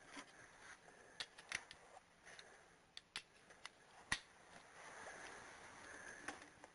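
Faint, scattered single clicks and light taps of hand tools being handled during bolt tightening, over near-silent room tone.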